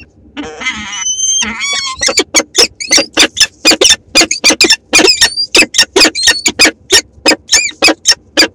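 Peregrine falcons calling at the nest scrape: a few drawn-out rising calls, then from about two seconds in a fast run of short, sharp calls at about four a second.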